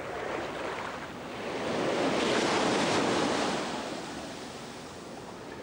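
Small surf breaking and washing up a sandy beach, one wave swelling to its loudest about two to three seconds in and then fading as it runs out.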